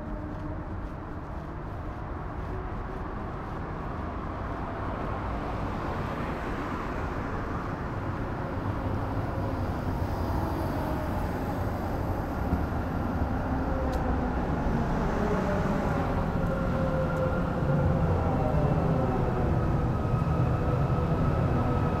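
A large vehicle's low rumble growing steadily louder as it draws near, with a few higher whining tones drifting in pitch over it.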